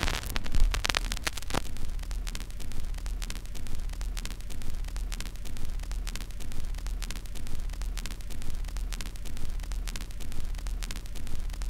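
Steady low electrical hum with irregular crackling clicks over it, like the noise floor of an old recording; no music or voice.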